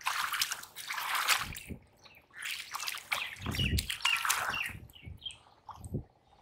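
Hands and feet splashing and sloshing in shallow muddy water, in irregular bursts, as fish are groped for by hand.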